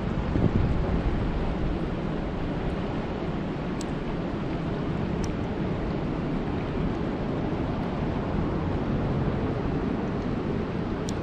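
Steady rushing of flowing water, with a few faint high ticks.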